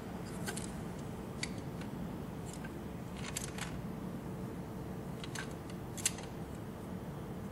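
Light plastic clicks and taps, about half a dozen scattered over several seconds, as an LPi injector's wiring connector is handled and pressed on. A steady low hum runs underneath.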